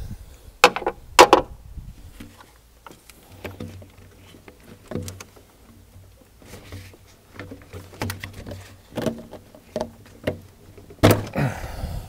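Clicks, knocks and rubbing of hands and tools working a rubber turbo boost pipe and its hose clips loose in a diesel engine bay, with the engine off. Two sharp knocks about a second in, then scattered lighter clicks, and a louder knock and scrape near the end.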